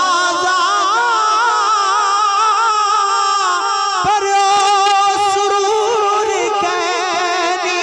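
A man singing a Punjabi naat into a microphone, holding long, ornamented notes whose pitch wavers up and down without a break.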